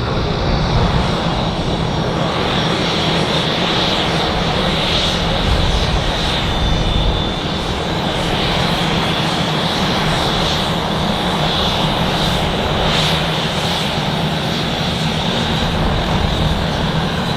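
Fixed-wing aircraft engine running steadily: a low rumble under a constant high whine that swells slightly a few times.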